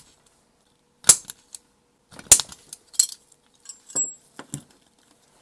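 Handheld spring-loaded impact driver snapping against a flat piece of metal held on a die-cast metal toy body, about five sharp clicks roughly a second apart with a few lighter ticks between. Each snap knocks at a bowed-in dent to flatten the body.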